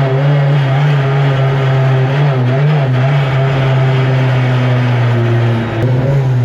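Deep Orange 9 race car's engine running loud at a steady, fairly high speed, its pitch holding nearly level with small wobbles.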